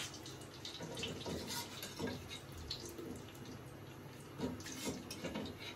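Melted desi ghee poured spoonful by spoonful from a steel ladle into a cooking pot, dripping and splashing, with light clinks as the spoon dips into the steel container and touches the pot.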